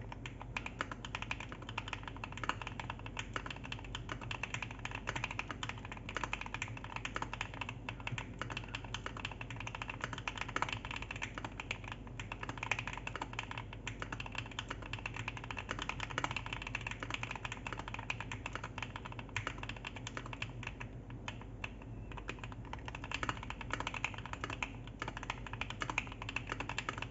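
Fast, continuous typing on a Keychron Q1 mechanical keyboard fitted with KTT Strawberry linear switches lubed with Krytox 205g0, Durock V2 stabilizers and double-shot Cherry-profile keycaps: a steady stream of keystroke clacks.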